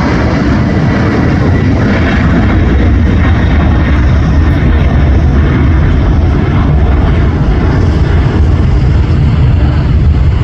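Boeing 747's jet engines at takeoff thrust: a loud, steady rumbling roar.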